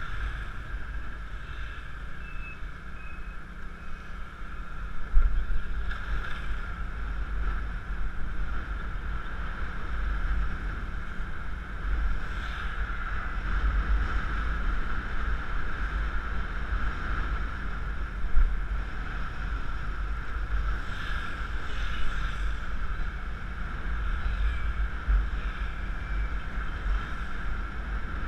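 Steady wind rumble on a helmet-mounted camera over the drone of a Yamaha Mio Classico scooter riding through traffic, with a couple of brief bumps along the way.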